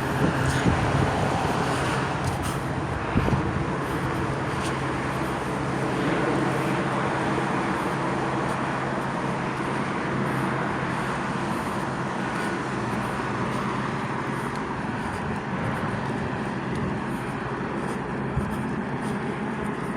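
Steady road traffic and vehicle noise with a low engine hum, which drops away about fifteen seconds in.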